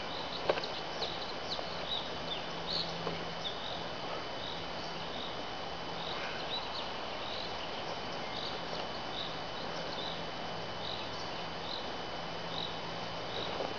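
Outdoor woodland ambience: a steady hiss with short high chirps repeating every half second or so, and a single sharp click about half a second in.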